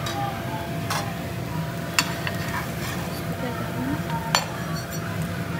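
Spatula scraping and tapping on a nonstick frying pan as a potato-filled dosa is folded, with a few sharp clicks, the loudest about two seconds in and near the end. Under it the dosa sizzles in the hot pan.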